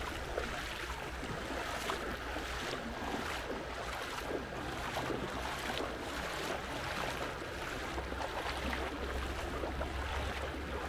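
Stream water rushing steadily over stones.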